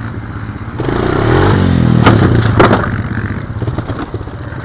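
Honda Recon ATV engine revving up under throttle about a second in and easing off again a few seconds later, with two sharp clattering knocks near the middle as the machine jolts over rough ground.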